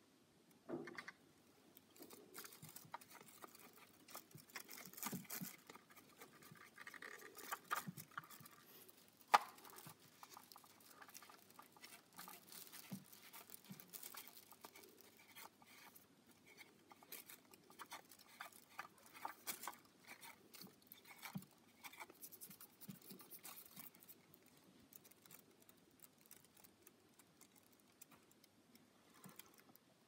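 Faint, irregular clicks and rustles of a handheld vacuum cleaner's plastic dust cup and a plastic bin liner being handled as packed dust and lint are pulled out, with one sharper plastic click about nine seconds in. The vacuum's motor is not running.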